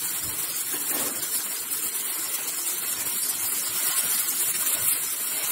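Minced meat sizzling steadily in a frying pan on low heat while being broken up with a wooden spatula.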